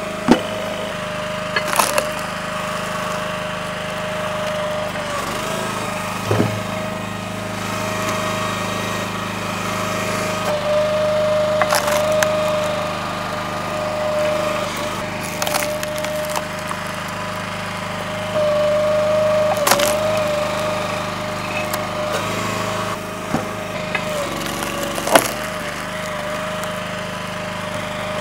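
Split-Fire 3490 log splitter running steadily with a constant engine drone and a held whine, while wood splits with sharp cracks and knocks every few seconds.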